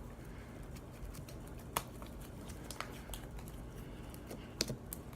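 Homemade slime being squeezed and handled: scattered small clicks and pops over a low steady hum, the sharpest a little under two seconds in and again near the end.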